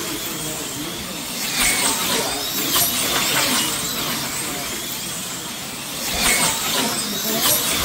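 Slot cars whizzing past on the track, their small electric motors whining; each pass is a quick sweep in pitch, coming in bunches about a second and a half in, around three seconds in, and again after six seconds, over a steady hiss.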